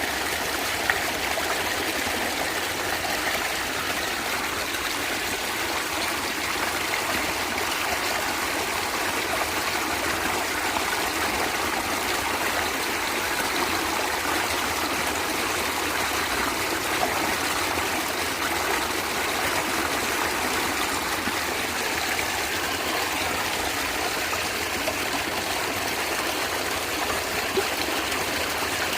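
A natural stream of water flowing and gurgling steadily over rocks, an even rushing with small trickling splashes.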